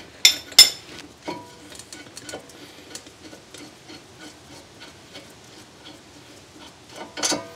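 Two sharp metal clinks from a hand socket wrench on a brake caliper bracket bolt, then a run of faint, evenly spaced clicks as the bolt is turned out. A louder clatter of metal comes near the end.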